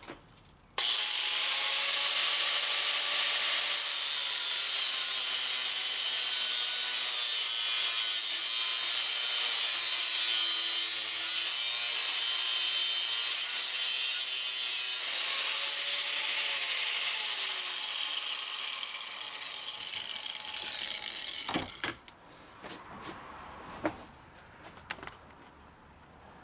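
Abrasive cutoff wheel cutting off the open end of a chrome-plated wrench: a loud, steady grinding hiss starts suddenly about a second in. Around fifteen seconds in it eases, and the wheel winds down with a falling pitch, stopping by about twenty-one seconds. A few clicks and knocks of the tool and wrench being handled come near the end.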